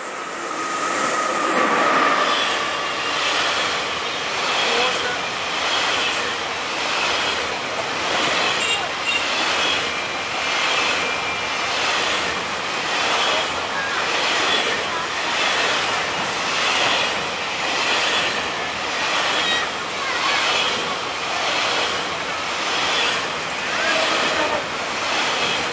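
Freight train of enclosed wagons rolling past close by behind an HXD1B electric locomotive. There is a louder rush in the first couple of seconds as the locomotive goes by, then the wheels clatter over the rails in a steady rhythm of about one beat a second.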